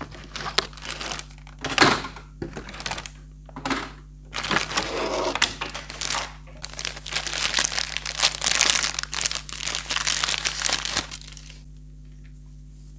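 Toy packaging crinkling as it is handled and unwrapped, in irregular rustling bursts that stop shortly before the end.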